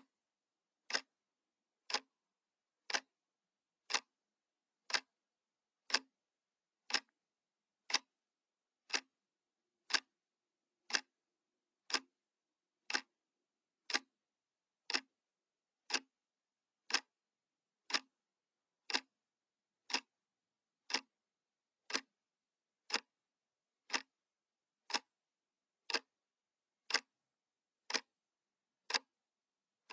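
Clock ticking sound effect: one sharp tick every second, evenly spaced, with silence between ticks.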